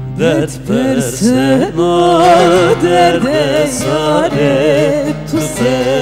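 A solo voice sings a long, ornamented folk melody whose notes slide and waver, over bağlama (saz) accompaniment. The voice comes in just after the start.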